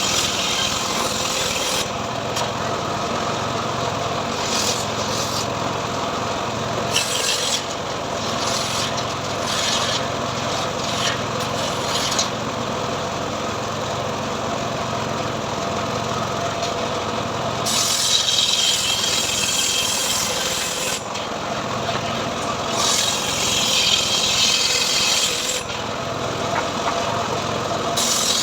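Homemade engine-driven sawmill running steadily while its blade cuts through a teak log. A high hiss from the cut swells and fades several times over the engine's even hum, loudest near the start, about two-thirds through and near the end.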